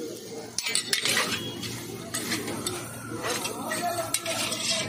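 Metal spatulas scraping and clanking against a large steel wok as chowmein noodles are tossed and stirred; an irregular metal clatter that starts about half a second in.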